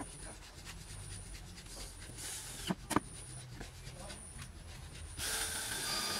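Light handling and rubbing on the MDF box panels, with two sharp knocks a little under three seconds in. About five seconds in, a cordless drill starts running.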